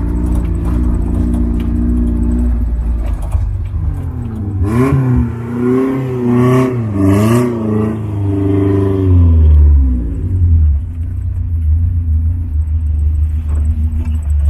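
Off-road jeep's engine running under load, its pitch rising and falling as it revs over rough ground for several seconds in the middle, with a few knocks and rattles; it settles into a low steady drone near the end.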